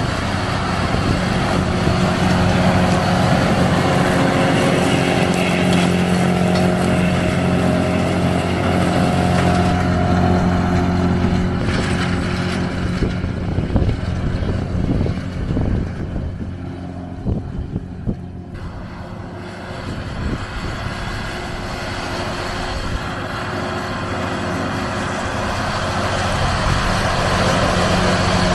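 Deutz-Fahr tractor's diesel engine running steadily under load while it pulls a trailed mower topping grass. It fades as the tractor drives away around the middle and grows louder again near the end as it comes back close.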